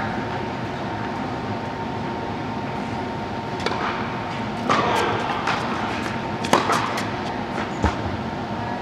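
Tennis balls being struck by rackets and bouncing on an indoor hard court: a handful of sharp pops, the loudest about five and six and a half seconds in. Underneath is a steady hum of the hall's ventilation.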